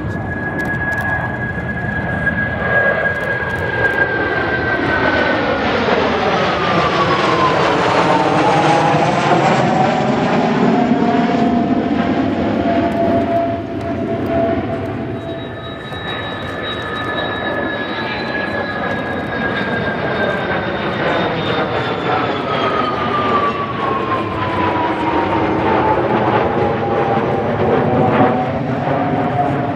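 Kawasaki T-4 jet trainers flying past, the whine of their twin turbofans gliding down in pitch as they go by, over a steady jet roar. A second pass follows about fifteen seconds later with the same falling whine.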